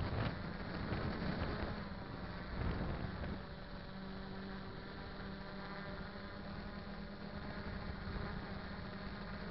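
A quadcopter's four brushless 2212 1000KV motors and propellers buzzing steadily in flight, heard from the camera on board, with a few louder rushes of noise in the first three seconds.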